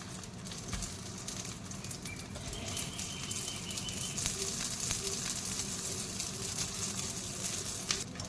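Rice paper rolls sizzling as they pan fry, a steady hiss with frequent small crackles.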